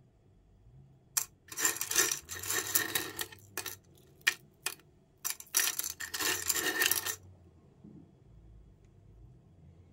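Handful of steel washer-head screws scooped up and handled in a bin, clinking and rattling against each other in several bursts.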